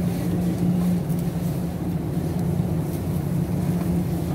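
A steady low mechanical hum and rumble that stays even, with no sudden sounds.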